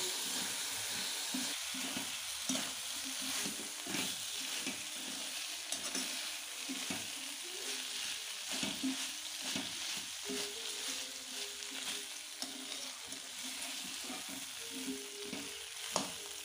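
Food sizzling in oil in a metal kadai while vermicelli with besan dumplings (gatte) and soya chunks is stirred and scraped with a metal spoon: a steady sizzle under repeated, uneven scraping strokes against the pan.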